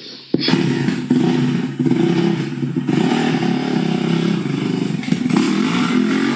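A motor vehicle engine running steadily, cutting in suddenly about half a second in.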